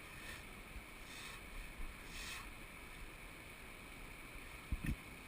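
Steady rush of flowing river water, with a few brief soft hisses in the first half and two low thumps near the end.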